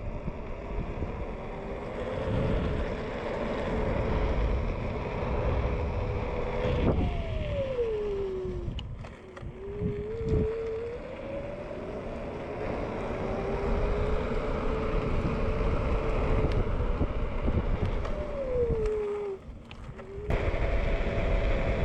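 TurboAnt V8 electric scooter's 450-watt motor whining as it picks up speed, the pitch climbing for about seven seconds and then dropping quickly as the scooter slows. It climbs again for several seconds and falls once more near the end, over a steady rush of wind noise.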